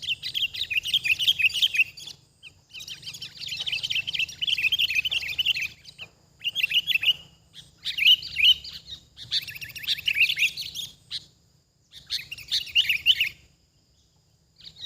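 Sooty-headed bulbuls (kutilang) calling: bursts of rapid, high chattering chirps lasting one to three seconds each, with short gaps between them and a longer pause near the end.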